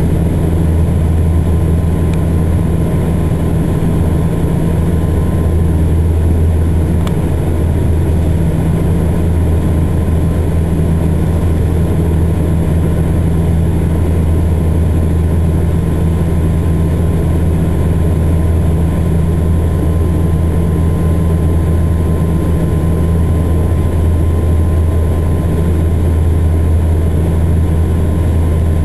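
Cabin noise of a Saab 340 turboprop airliner in flight: a steady, deep propeller drone with a low hum and its overtone, over a layer of rushing air noise.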